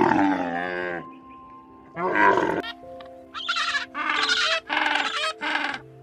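A camel calling over background music: a loud call falling in pitch at the start, and a shorter call about two seconds in. A run of short, higher, brighter animal calls fills the second half.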